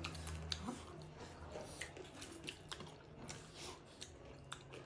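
Close-miked eating sounds: faint chewing with scattered small wet clicks and smacks of mouths and fingers working rice and curry.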